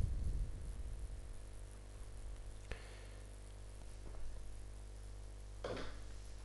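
Steady low electrical hum and buzz on the recording, with a few faint short noises, the loudest near the end.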